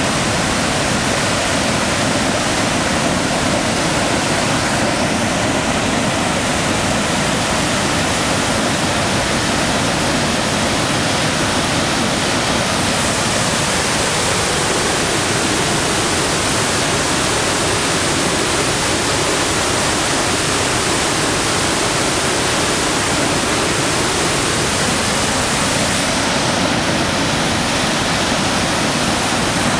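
High Falls of the Pigeon River, a waterfall of some 130 to 150 feet, pouring over a rock cliff into a gorge: a loud, steady rush of falling water spread evenly from deep to high.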